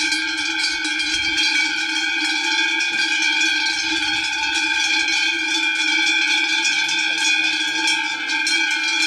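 Many cowbells worn by a walking herd of cattle, clanking and ringing together in a steady, overlapping jangle.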